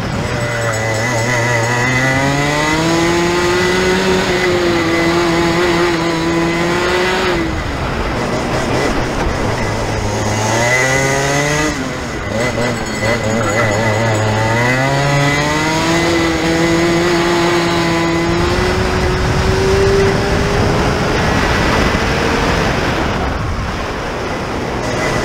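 Rotax Junior 125 cc two-stroke kart engine at racing speed, heard from on board. The revs climb, hold high down the straights, then fall away twice as the driver lifts for the bends and climbs again on the way out.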